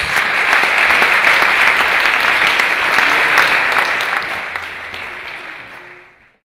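Audience applauding, a dense patter of many hands clapping, steady for about four seconds and then fading out to silence.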